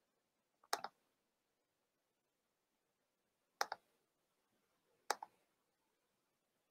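Three short computer mouse clicks against near silence, each a quick pair of ticks.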